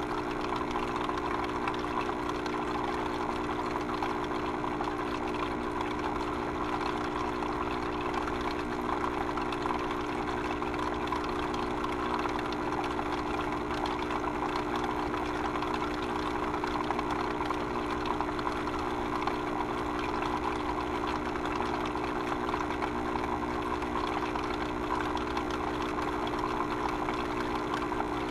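A machine running steadily, a constant hum of several tones under a rushing, hissing noise, with no change in speed.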